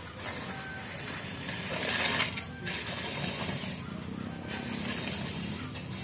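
Unhusked rice grain being raked across a concrete drying yard with a long-handled rake: a dry rustling hiss of grain sliding, loudest about two seconds in.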